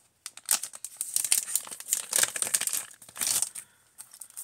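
Clear plastic die packaging crinkling and rustling as it is handled, in irregular bursts for about three seconds before it stops.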